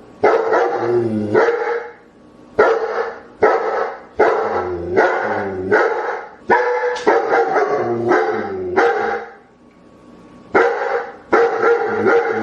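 Dogs barking loudly in a quick series of sharp barks, about one or two a second, with a pause of about a second before the last few barks.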